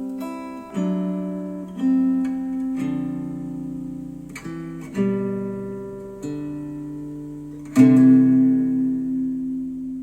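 Acoustic guitar music played back through bookshelf speakers: plucked chords that change about once a second, with a loud chord about eight seconds in left to ring and fade.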